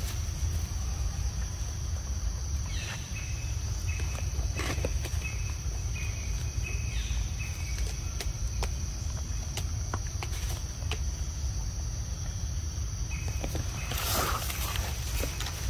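Steady outdoor background: a constant high insect drone over a low rumble, with a broken chirping tone in the first half. Scattered small wet clicks and smacks come from a macaque biting and chewing a ripe mango, and a louder rustle comes near the end.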